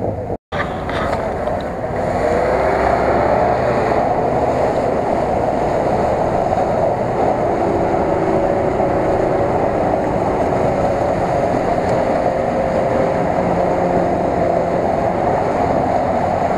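Off-road SUV's engine held at high revs under heavy load as the vehicle pushes through deep mud close by, with a steady rumble. After a momentary dropout just after the start, it gets louder about two seconds in and stays loud.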